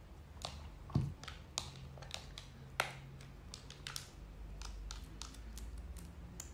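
Faint, irregular small clicks and taps of makeup products and their packaging being handled, with a duller thump about a second in.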